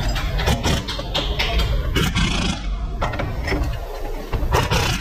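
Car repair workshop noise: irregular clicks and knocks over a steady low rumble.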